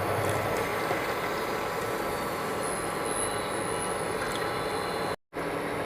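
Steady rushing hiss of a pot of tea water and milk heating on a stove on high heat, with no distinct knocks or bubbling strokes; the sound cuts out for a moment about five seconds in.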